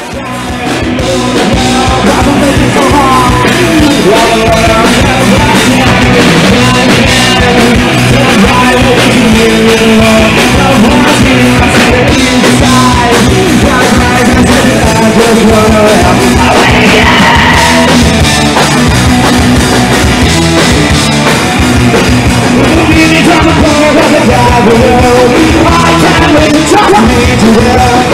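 Live rock band playing loud, with electric guitars, bass guitar, drums and vocals; the song rises in over the first second or two.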